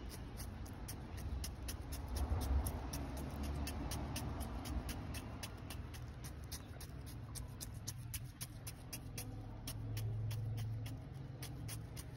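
Plastic comb teeth scraping along a split aloe vera leaf to strip off the gel, making a quick irregular series of light clicks, several a second. A steady low rumble runs underneath.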